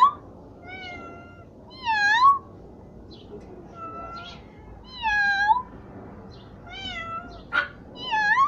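Domestic cat meowing over and over, a call every second or two, the louder meows dipping and then rising in pitch. A short sharp noise sounds near the end.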